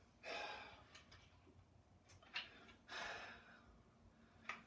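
A man's breathing, faint: two long, airy exhales. A few short, sharp clicks of small parts being handled come between them.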